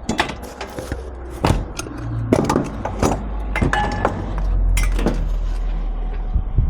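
Pieces of scrap metal clanking and clinking as they are handled and shifted: a string of sharp, irregular knocks over a steady low rumble.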